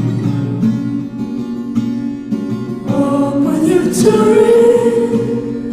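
Song with acoustic guitar strumming and a singing voice; the voice comes in about three seconds in and holds a long note.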